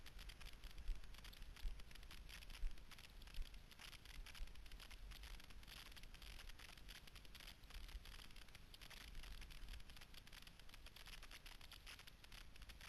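Faint hiss and crackle of cross-country skis sliding downhill on packed snow, over a low wind rumble, with a few sharper knocks in the first few seconds.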